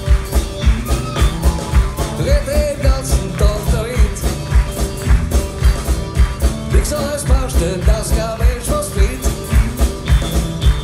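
A live band playing a song on acoustic guitars, electric bass and keyboard, with a steady beat of about two to three pulses a second and a sung melody.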